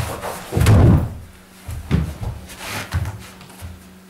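Thuds and scuffling of two people grappling on a carpeted mat. The heaviest thud comes about half a second to a second in, followed by a few lighter knocks.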